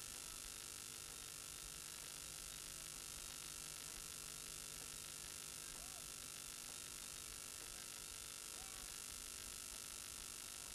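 Faint steady hiss with a constant electrical hum, unchanging throughout and with no distinct events.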